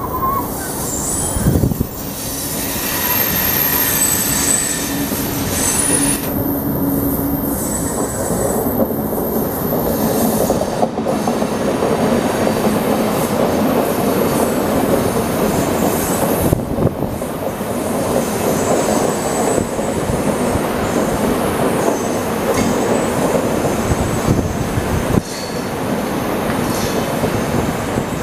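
Express passenger train of LHB coaches running past at close range: steady rumble of steel wheels on the rails, with a high-pitched wheel squeal that is strongest in the first ten seconds or so.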